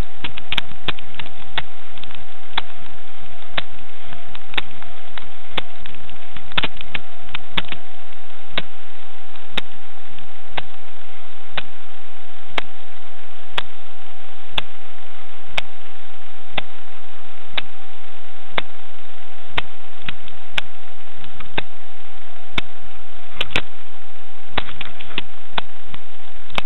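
Footfalls on a rocky mountain path picked up by a wrist-worn camera watch's microphone as sharp knocks over a loud steady hiss and a faint constant tone. The steps come quick and uneven for the first eight seconds, then slow to about one a second, and bunch up again near the end.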